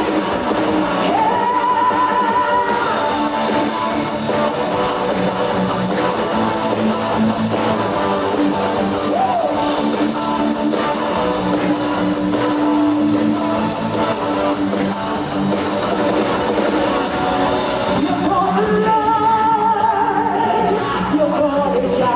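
Live rock-pop band playing through a PA: electric guitars, drums and keyboard, with a woman singing lead into a handheld microphone. Her voice stands out about a second in and again near the end, with a stretch of mostly instrumental music in between.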